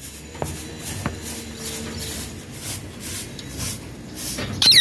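Rustling and scratching as the pet Indian ringneck parakeet moves about, then near the end a short, loud, high-pitched squawk from the bird with quick falling notes.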